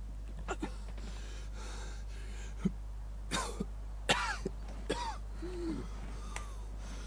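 A person coughing repeatedly: a series of short, separate coughs and throat-clearing sounds, some ending in a falling voiced note, the loudest about four seconds in.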